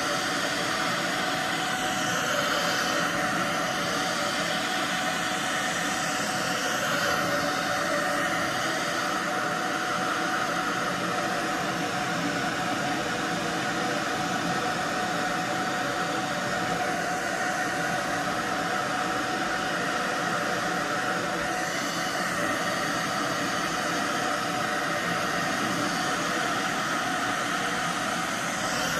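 Handheld hair dryer running steadily on a wig, a constant rush of air with a faint steady motor tone, blowing hair as it is brushed.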